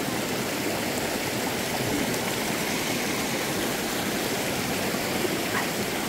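Mountain stream running over rocks: a steady rush of water.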